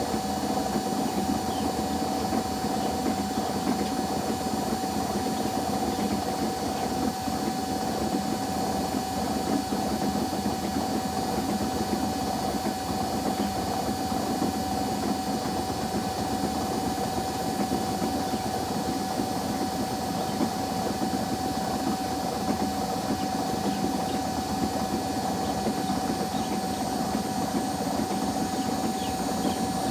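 Washing machine running a spin cycle: a steady drum-and-motor hum with a constant high whine, even throughout.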